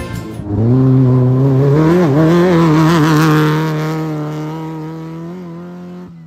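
Off-road race vehicle's engine revving up, then holding a steady high pitch while it slowly fades away. The pitch wavers briefly about two seconds in.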